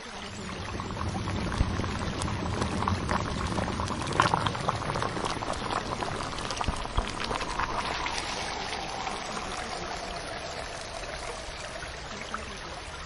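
Steady bubbling, trickling water sound with many small drips and crackles through it, busiest about a third of the way in.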